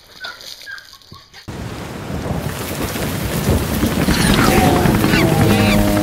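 Rain with birds chirping. The rain starts suddenly about a second and a half in, after a few faint chirps, and grows steadily louder. Near the end, steady held notes of music come in under it.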